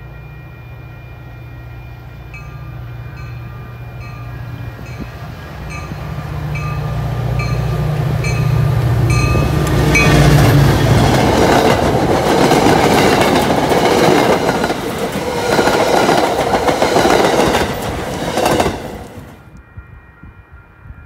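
Commuter train led by an EMD F40PH diesel locomotive approaching and passing close by. The diesel's low drone grows louder, with a bell ringing about every 0.7 s for several seconds. Then the loud clatter of the coaches' wheels on the rails takes over and cuts off abruptly near the end.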